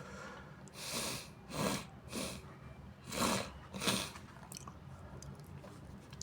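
A nose congested with sinusitis sniffing in five short breaths, two close together near the end.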